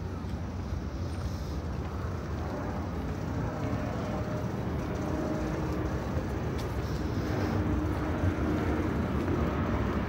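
Outdoor city ambience: a steady low rumble of engine noise from traffic that grows slowly louder, with a faint hum rising out of it in the middle.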